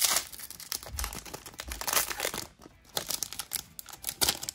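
Foil wrapper of a Pokémon TCG Crimson Invasion booster pack being torn open and crinkled as the cards are pulled out, in several bursts of crackling.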